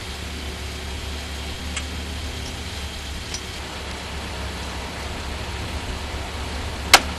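Linde 39X forklift engine idling quietly: a steady low hum under an even hiss, with a single sharp click near the end.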